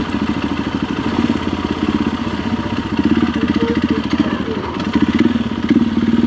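Motorcycle engine running steadily at moderate speed, its exhaust beat a fast even pulse.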